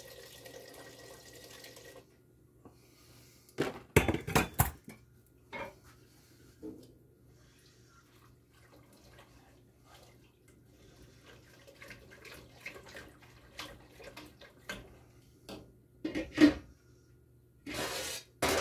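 Water running from a kitchen tap for about two seconds, stopping abruptly, then the clatter of pots, dishes and utensils: a cluster of sharp knocks about four seconds in, scattered light clinks, and louder clattering near the end.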